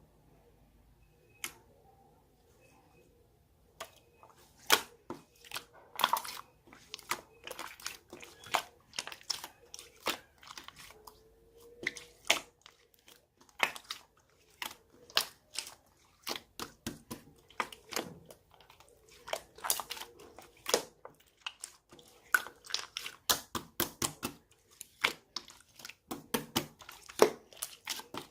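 Irregular sharp clicks and crackles close to the microphone, starting about four seconds in and growing denser, like something crisp being handled, crumpled or crunched.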